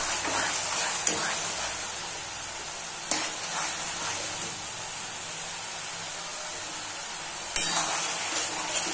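Onion-tomato masala sizzling in oil in a metal kadai while a metal spatula stirs and scrapes it. This is the stage of frying the freshly added turmeric and chilli powder into the masala. Sharp knocks of the spatula against the pan come about a second in, at about three seconds, and near the end.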